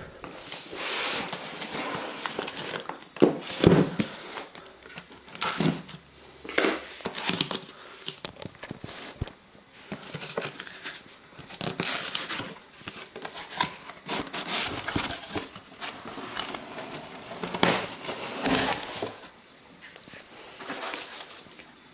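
Cardboard box and its packaging being opened by hand: irregular crinkling and rustling of wrapping and a little tearing. There are a few sharper knocks of the box parts about three to four seconds in and again near the end.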